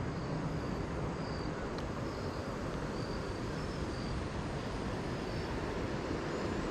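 Steady rush of flowing river water, with faint short high chirps repeating over it.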